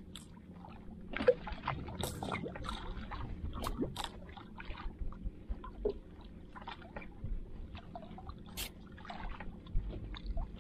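Wet squid handline being hauled in hand over hand over the side of a small boat, with water splashing and dripping and scattered small clicks and knocks.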